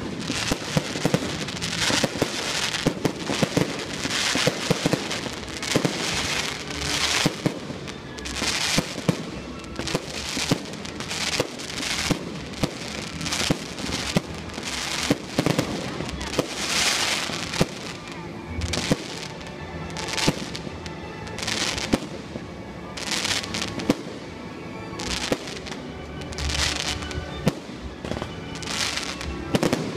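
Fireworks display: shells launching and bursting in quick succession, sharp bangs and hissing, crackling bursts about every second, over a music soundtrack.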